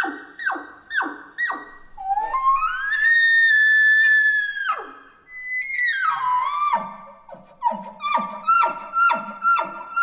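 Imitated bull elk bugles blown through bugle tubes. Four quick descending chuckles, then a call that rises into a long high whistle held about two seconds before it drops away. From about six seconds in, a second caller's bugle slides down into a fast run of chuckles, about two a second.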